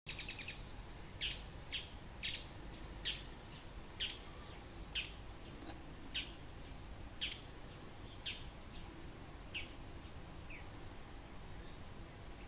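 Bull-headed shrike giving its autumn high-pitched call (takanaki): a quick run of sharp notes at the start, then single sharp notes sliding down in pitch about once a second, growing weaker and stopping about ten and a half seconds in. It is the call that shrikes give in autumn to stake out a winter territory.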